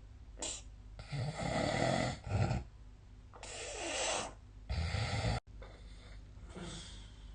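A sleeping man snoring: a run of loud, rasping snores about a second long each, one cut off suddenly midway, followed by a fainter breath near the end.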